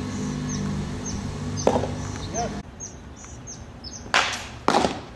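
Pitched baseball smacking into a catcher's leather mitt: a lighter pop about a second and a half in and two loud sharp pops near the end. A bird chirps high and repeatedly throughout, and a low steady hum stops about halfway through.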